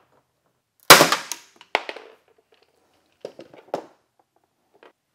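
A paintless dent repair lifter pulling a glue tab on a steel car fender: the glue bond lets go with one sharp, loud pop about a second in as the dent is pulled, followed by a smaller click and a few light clicks of the tool being handled.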